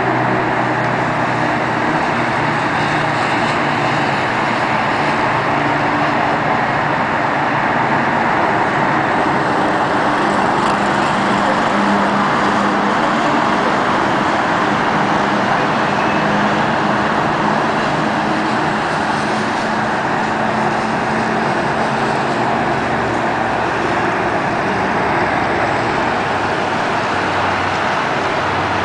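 Steady road traffic noise: a continuous wash of passing vehicles with no single event standing out.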